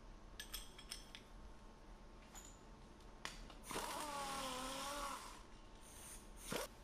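Pneumatic impact wrench running for about a second and a half, a hissing, wavering whine, after a few light clicks.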